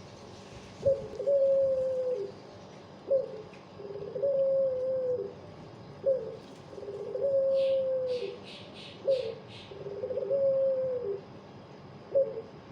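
Puter pelung dove cooing in a slow, mournful, crying-like way: five calls, each a short note followed by a long held note that drops at the end. Partway through, another small bird gives a quick run of about six high chirps.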